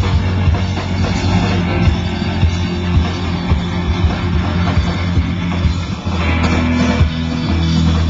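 Live rock band playing loudly through a PA: electric guitars and bass over a drum kit, with steady drum hits and a heavy bass line.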